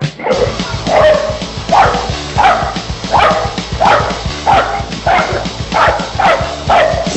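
A dog barking about ten times at an even pace, roughly one bark every 0.7 s, each bark dropping in pitch, over loud punk rock music.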